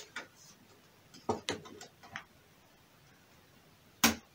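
Nail clippers snipping plastic model-kit parts off a sprue: a sharp snap right at the start and another about four seconds in, with softer clicks and handling noises in between.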